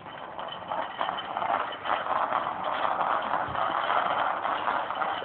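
Hard wheels of a child's tricycle and a training-wheel bicycle rolling on asphalt: a steady rattling noise with many small ticks, louder from about a second in.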